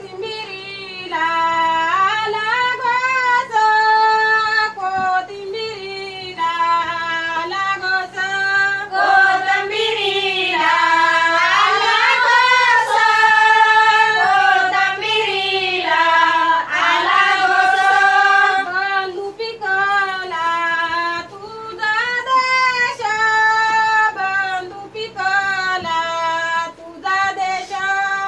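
Women singing a Malvani fugadi folk song, a high melody with long held notes.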